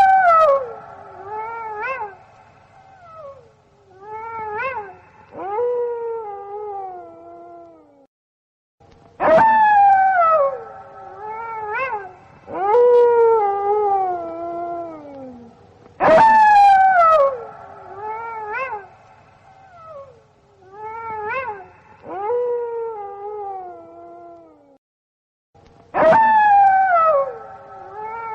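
Gray wolves howling in chorus, several long howls overlapping and sliding down in pitch. The howls come in bouts about every eight seconds, each starting abruptly, with short gaps between them.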